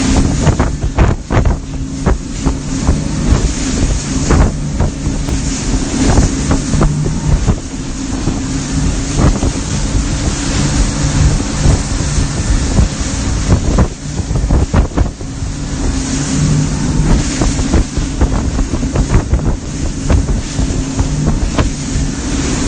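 Motorboat engine running steadily under way, with wind noise on the microphone and frequent short knocks throughout.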